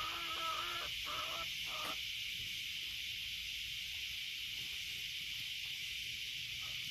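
A chorus of cicadas making a steady, high-pitched drone. During the first two seconds, hens give a few short clucking calls over it.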